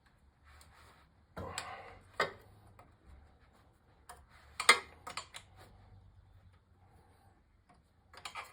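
Hand tools and metal parts being handled while working on an engine: scattered sharp clicks and clinks with a short rustling scrape. There is a brief scrape about a second and a half in, the loudest clink comes about five seconds in, and a quick cluster of clicks follows near the end.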